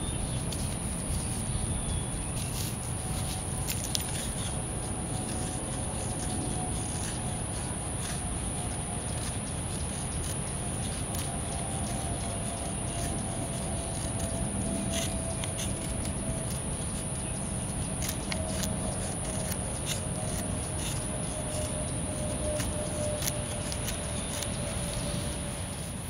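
DA048 folding knife blade scraping and cutting into a dry wooden stick, giving irregular scrapes and small clicks. A steady high-pitched hiss and a low rumble run underneath.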